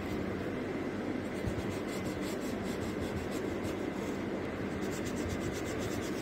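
Black permanent marker scribbling on paper, its tip rubbed back and forth in many short strokes to fill in a solid black area.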